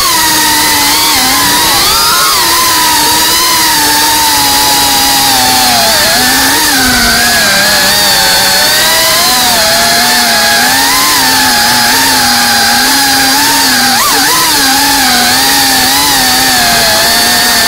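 FPV quadcopter's brushless motors and propellers buzzing, their pitch rising and falling continually with the throttle, over a steady hiss of wind and prop wash.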